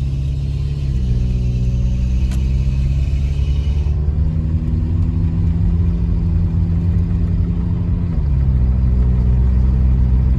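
Subaru car engine pulling under acceleration on a test drive. Its pitch climbs and then drops abruptly twice, about a second in and again near the end, as it shifts up. The engine runs smoothly with no misfire, now that its spark plugs are new.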